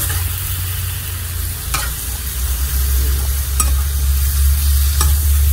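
Kimchi sizzling in hot oil in a wok while a metal spatula stirs it, with a few sharp scrapes and knocks of the spatula against the pan. A steady low hum runs underneath.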